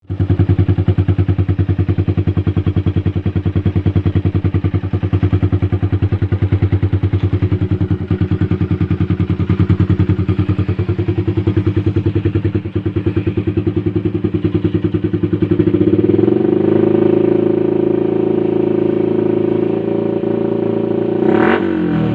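Yamaha Jupiter MX's single-cylinder four-stroke engine running through a locally made aftermarket exhaust: a lumpy, pulsing idle that rises to a higher, smoother speed about two-thirds of the way in, then a quick blip of the throttle near the end.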